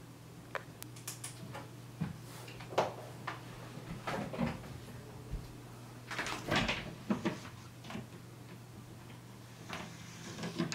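Scattered knocks and clicks of things being handled, then a closet door rattling and knocking as it is pushed open, over a faint steady hum.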